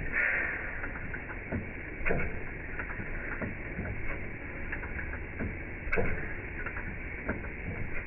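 Small horizontal stationary engine running with its built-on pump, a busy clatter of light clicks and knocks from the valve gear and pump, with a few louder knocks and a brief hiss.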